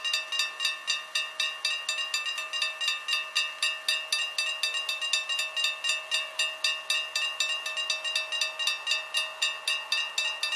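Level-crossing warning bell ringing rapidly and evenly, about four strikes a second, the signal that a train is approaching the closed crossing.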